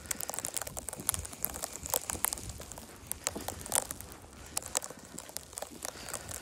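Footsteps crunching over icy snow, with a dense, irregular crackling and ticking.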